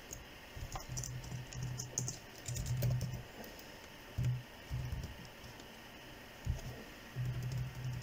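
Computer keyboard typing: scattered key clicks, thickest in the first three seconds, as a line of code is retyped. A low hum comes and goes underneath.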